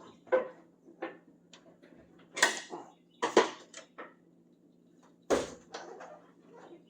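Irregular knocks, creaks and scrapes against the truck cab as a cord is pulled along the bottom of the windshield's rubber seal to work the glass out of its opening, about five separate knocks over several seconds.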